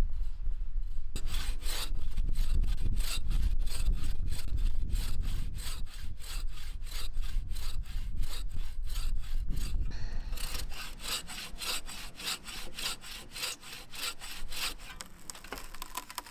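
Bow saw cutting through a tree branch by hand: quick, even back-and-forth strokes that start about a second in and turn sharper and hissier about ten seconds in.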